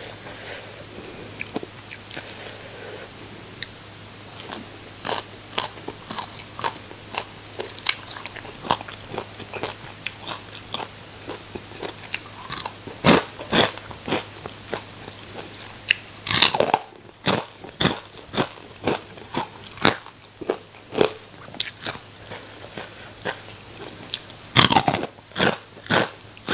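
Close-miked biting and chewing of crisp deep-fried small fish with roe: a dense run of sharp crunches at an irregular chewing rhythm, with a few louder bites in the second half.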